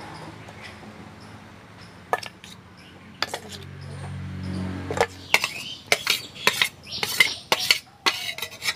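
Steel spoon scraping and clinking against a stainless steel bowl as a chickpea mixture is tipped out onto a plate. A few sharp clinks come in the first half, then they come quickly, several a second, from about halfway through.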